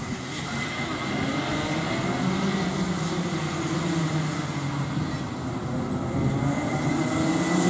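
Several racing go-kart engines running on the circuit, their pitch rising and falling as the karts lap. The sound gets louder toward the end.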